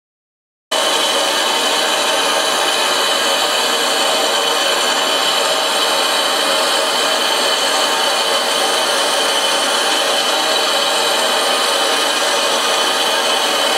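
Steady, loud hiss of steam escaping from a German class 01 steam locomotive, starting abruptly about a second in and holding at one level, with no exhaust beats.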